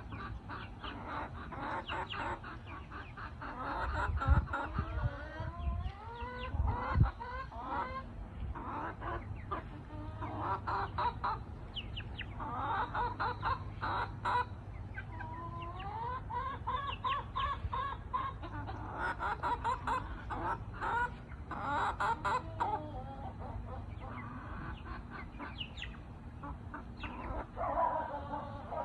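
Silkie hens clucking and calling over and over, several birds at once, with a few drawn-out rising calls among the short clucks.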